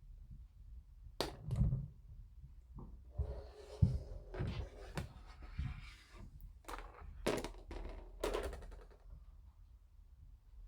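Light clicks and knocks of small plastic model-kit parts and tools being handled on a work surface, with a rustle in the middle and a quick run of sharp clicks shortly after.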